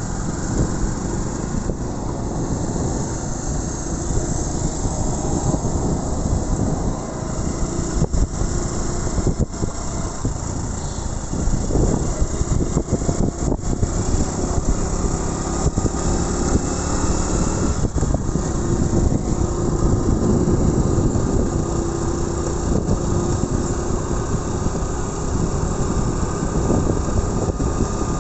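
Motorbike riding at speed: wind rushing over the microphone, with the engine running steadily underneath.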